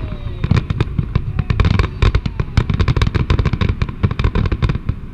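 Aerial fireworks going off in a rapid volley of sharp bangs and cracks, many per second, thinning near the end: the show's closing finale barrage.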